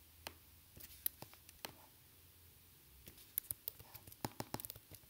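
Faint computer keyboard typing and mouse clicks: scattered single clicks, then a quicker run of keystrokes in the last couple of seconds.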